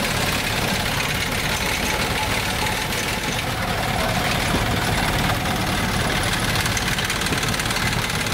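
Diesel engine of a small narrow-gauge locomotive running steadily at idle, close by.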